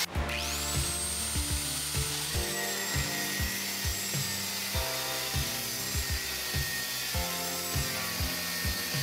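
Angle grinder cutting flat steel: a high motor whine that climbs sharply in pitch just after the start, then holds steady, under background music with a regular beat.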